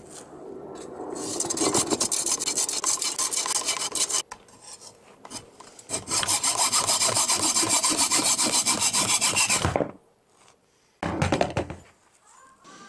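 Hacksaw cutting through the cast aluminium chimney (sprue) of a lost-foam casting, in rapid back-and-forth strokes: two long runs of sawing with a pause between them, then a short final burst near the end.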